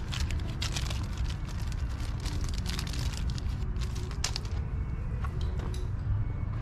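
Quick, irregular clicks and light metal rattles of hand tools and hardware being worked at an engine's exhaust fittings, thick for about the first four seconds and then sparser, over a steady low rumble.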